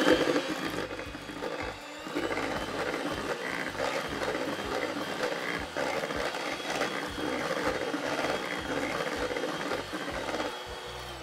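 Electric hand mixer running, its beaters whirring through thin cake batter in a stainless steel bowl; it switches off near the end.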